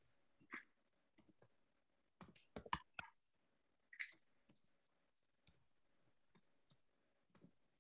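Faint computer keyboard keystrokes: a few isolated key clicks, with a quick run of several about two to three seconds in.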